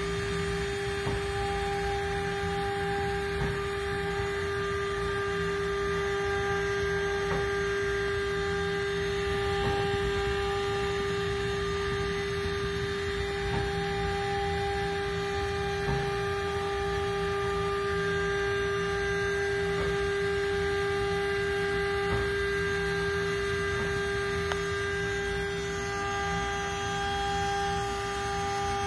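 CNC spindle running with a steady whine while its small cutter mills a BGA chip off a laptop motherboard. Faint clicks come now and then as the machine moves.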